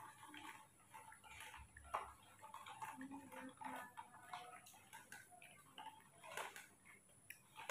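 Faint, irregular soft clicks over near silence, like the wet smacking of a baby macaque sucking on its fingers.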